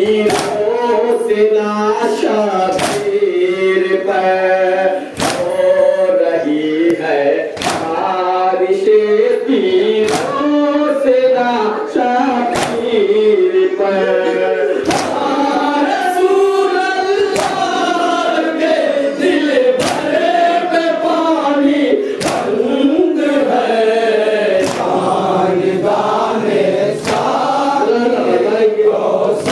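A group of men chanting a Shia nauha (Muharram lament) together, with a sharp strike cutting in every second or two.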